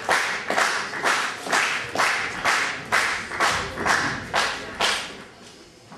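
Audience clapping in unison, in a steady rhythm of about two claps a second, to urge on the lifter; the clapping stops about five seconds in.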